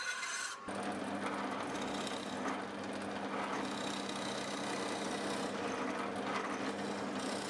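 Drill press running, with a Forstner bit boring into pine to clear the waste from a bridle joint: a steady motor hum under the noise of the cut. For the first moment a bandsaw is running, before the sound changes sharply about a second in.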